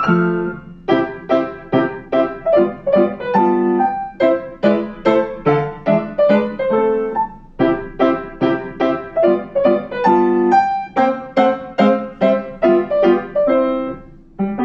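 Upright piano played solo: short, detached notes and chords in a quick, even rhythm, with brief pauses between phrases.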